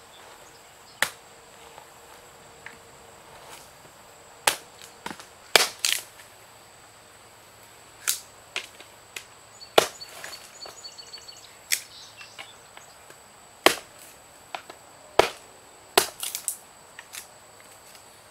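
Small axe chopping and splitting wood: about a dozen sharp, irregularly spaced chops, one to two seconds apart, some in quick pairs.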